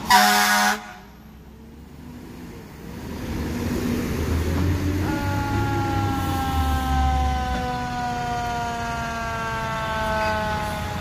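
A fire truck's air horn blasts once, briefly and loudly, right at the start. Then heavy emergency vehicles rumble past while a siren wails, its pitch falling slowly over the last six seconds.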